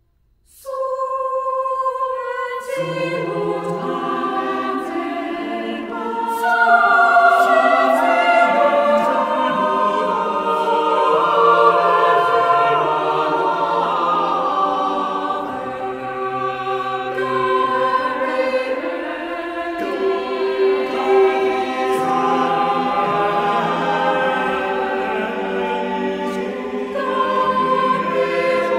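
Choir singing unaccompanied in several parts, with long held notes. The upper voices enter just under a second in and the lower voices join about two seconds later.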